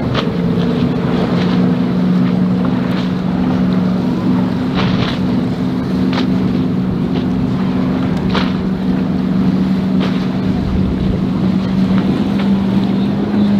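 Twin 200 hp outboard motors on a center-console boat running at cruising speed, a steady drone, with wind on the microphone.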